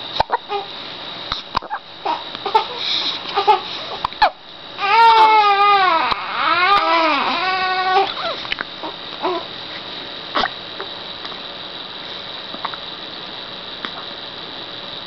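Six-week-old baby with the hiccups: short sharp hiccups and small fussing sounds, then a wailing cry of about three seconds starting about five seconds in, then quieter with another hiccup later on.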